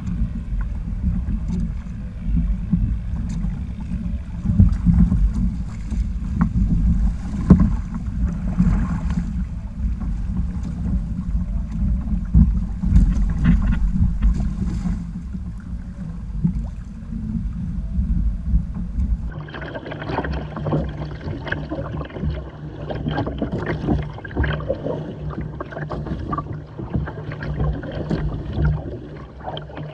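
Wind buffeting the microphone over water rushing past a Hobie sailing kayak under sail. About two-thirds of the way through it switches to close water splashing and slapping against the hull.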